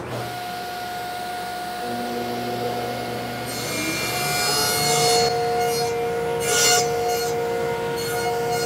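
Table saw running with its blade set low, nibbling away a walnut board in repeated passes to cut a shallow slot. The cutting noise rises around four seconds in and again around seven seconds in, over the saw's steady running tone.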